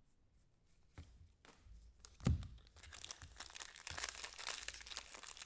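A thump about two seconds in, then a trading-card pack's foil wrapper being torn open and crinkled.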